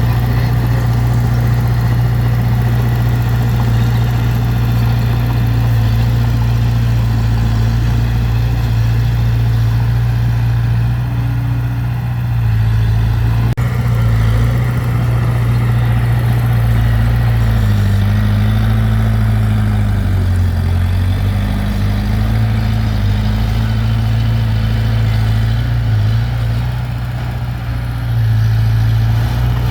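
Heavy construction-machine diesel engine running steadily, its pitch sagging and coming back up for a few seconds past the middle, with one short knock a little before that.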